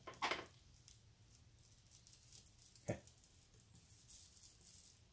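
Faint workbench handling noise: a brief rattle of small clicks near the start and a single knock about three seconds in, from tools and battery cells being moved while soldering.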